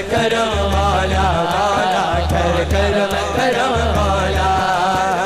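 A man singing a long, wavering devotional melody (naat/kalam) into an amplified microphone, over a steady beat of regular percussion ticks and a deep pulsing bass.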